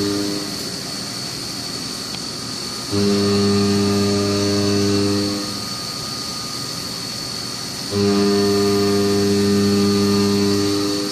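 CNC milling machine running, with a steady high-pitched whine and a low, even hum that switches on and off three times, each time for about two and a half seconds.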